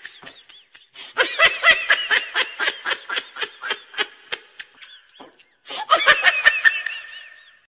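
High-pitched laughter, a fast run of short 'ha' syllables, breaking off briefly about five seconds in, then resuming and trailing away near the end.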